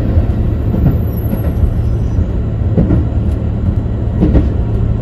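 KiHa 85 series diesel railcar running at speed, heard from inside the car: a steady low rumble with an occasional faint knock.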